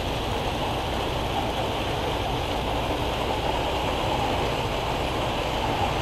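A model train running on the layout's track: a steady rushing rumble with no clear beat or tone.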